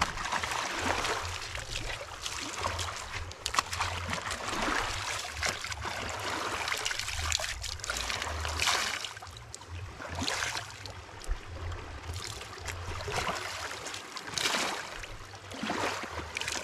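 Lake water splashing and sloshing as a vest is washed and rinsed by hand, in a run of irregular swishes with a few louder splashes now and then.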